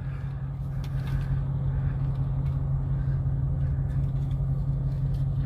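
Car engines idling, heard from inside a car's cabin as a steady low drone that holds one pitch, with no revving.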